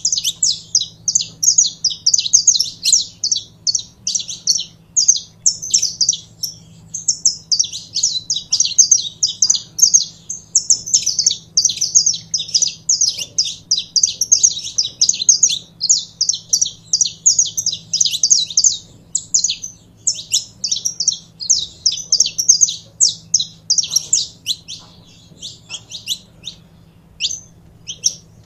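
Saffron finch singing: a long, fast, nearly continuous run of high chirping notes. It thins out to scattered notes near the end.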